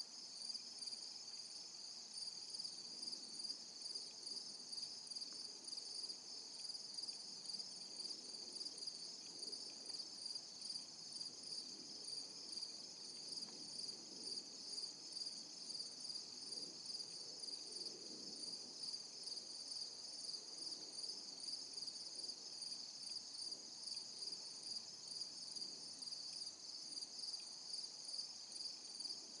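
Insects chorusing in the woods: a steady, high-pitched, rapidly pulsing trill that holds unbroken throughout.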